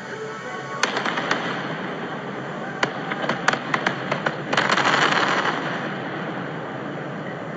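Aerial firework shells bursting: a sharp bang about a second in, then a string of sharp bangs from about three seconds, and a dense, loud rush of sound around the middle.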